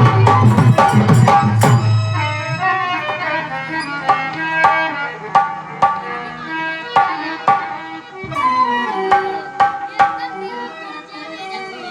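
Instrumental break in a Hindi folk bhajan: hand-drum strokes under a sustained melody. The drumming is dense for the first two seconds, then thins to spaced strokes.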